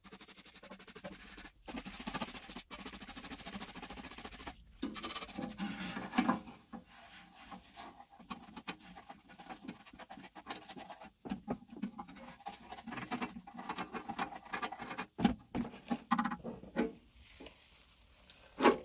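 Gloved hand wiping and scrubbing inside the rusty sheet-metal drum of a 1930s Pulvis-R insecticide duster, with rubbing and scraping against the metal in short strokes. A sharp metal knock comes near the end.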